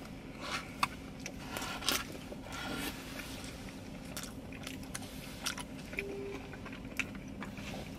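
Close-up chewing and wet mouth sounds of people eating loaded fries, with scattered soft clicks of plastic forks against foam takeout containers.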